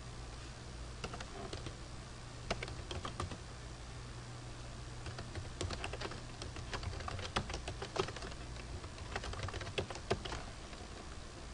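Typing on a computer keyboard: irregular key clicks in short runs with pauses, over a faint steady low hum.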